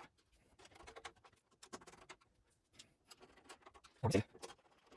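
Light scattered clicks and taps of small metal rack hardware being handled while mounting gear in a server rack, with one louder knock about four seconds in.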